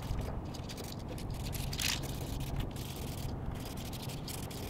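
Aerosol spray paint can hissing in short bursts, the loudest about two seconds in, over a steady low hum.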